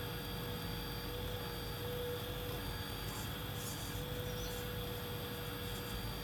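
Scale RC hydraulic excavator's pump running with a steady whine, one held tone, as the bucket works through sand and gravel. A few faint scratchy sounds come about three seconds in.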